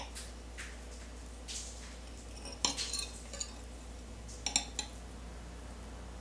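A table knife clinking and scraping against a ceramic plate as it cuts through a firm cashew cheese. A few light taps come in the first couple of seconds, then two clusters of sharper clinks, about two and a half and four and a half seconds in.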